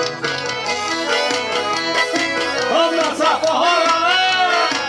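Live forró music from a band, playing on without a break.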